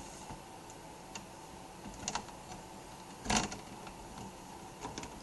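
Small screwdriver prying at a laptop's plastic hinge cover: a few sharp plastic clicks and ticks, the loudest about two and three and a half seconds in, as the cover is worked loose from the hinge.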